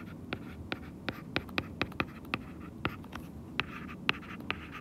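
Stylus tip tapping and sliding on an iPad's glass screen during handwriting: a run of light, sharp ticks, a few a second, with a faint scratch between strokes.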